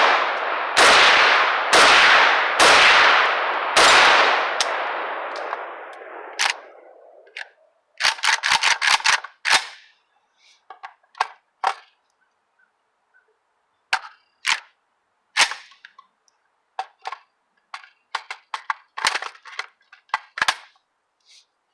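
Gunfire: shots about three-quarters of a second apart, each with a long echoing tail that rings on for a few seconds. About eight seconds in comes a quick run of sharp, short cracks, then scattered single cracks in ones and twos.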